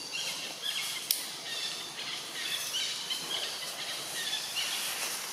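Outdoor tree-canopy ambience: small birds chirping over and over above a steady high hiss, with one sharp click about a second in.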